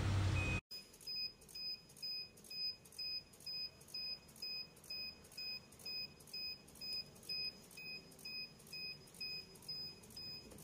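Power inverter's alarm buzzer beeping evenly, about two short beeps a second, a warning that the inverter under test has tripped on a fault. A loud rushing noise underneath it cuts off abruptly about half a second in, leaving the beeps alone.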